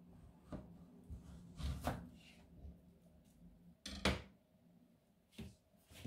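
Kitchen knife cutting peeled banana and knocking on a plastic cutting board: a handful of separate short knocks, the loudest about four seconds in as the knife is laid down on the board.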